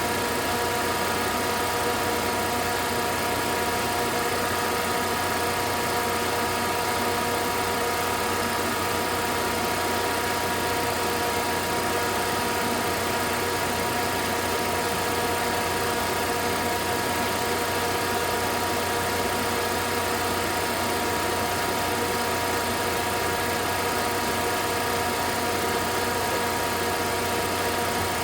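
Mitsubishi L200 pickup engine idling steadily, running on newly replaced drive belts.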